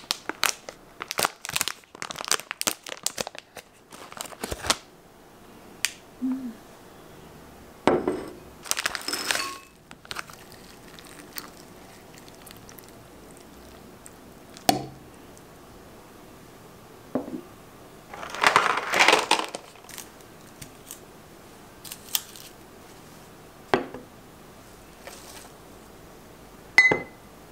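Plastic packaging of dried porcini mushrooms crinkling and crackling as it is handled and opened, in several stretches, with a few single light knocks of things being set down.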